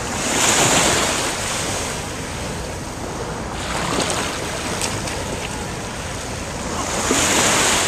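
Surf washing up on a sandy beach, with waves swelling loudest about a second in and again near the end, and wind buffeting the microphone.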